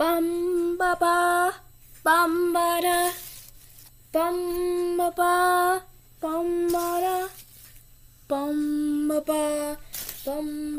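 A girl singing a wordless tune on held notes, in about six short phrases with pauses between them; the last two phrases sit a little lower in pitch.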